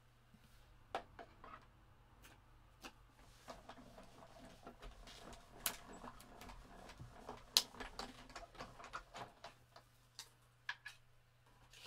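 Hand-cranked die-cutting machine being turned, running a metal die and plates through: a string of irregular light clicks and ticks, busiest in the middle.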